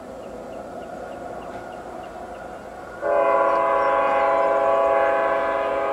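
Canadian Pacific freight locomotive's air horn sounding a chord of several notes for a road crossing: softer for the first few seconds, then a long loud blast from about three seconds in that fades near the end.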